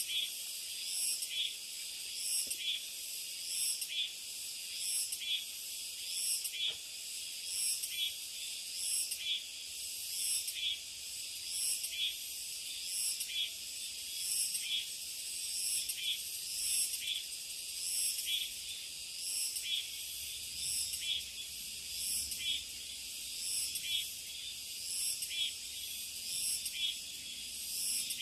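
A high-pitched chorus of summer insects, swelling in a regular beat a little slower than once a second.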